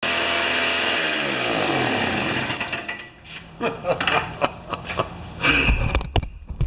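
Tecumseh two-stroke snow thrower engine running, then shutting down: its pitch falls from about a second in as it coasts to a stop. A few knocks and clatter follow.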